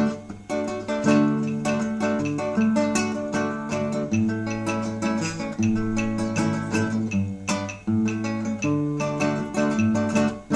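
Instrumental Cuban guitar music: plucked and strummed acoustic guitars over a steady bass line, with no singing.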